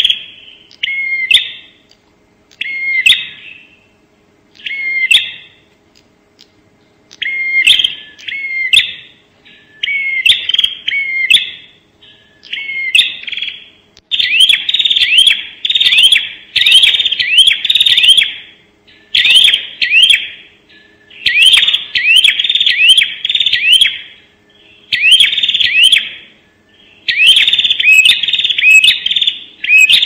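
Ashy tailorbird (prenjak) calling fast and loud: short repeated chirping phrases in bursts, spaced out at first and running together into dense rapid-fire volleys from about halfway. A faint steady hum lies underneath.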